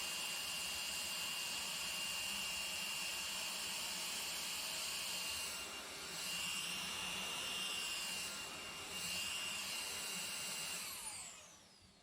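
Panasonic stick vacuum cleaner running with a steady high whine; the sound shifts briefly twice midway, then the vacuum is switched off and its motor winds down with a falling whine near the end.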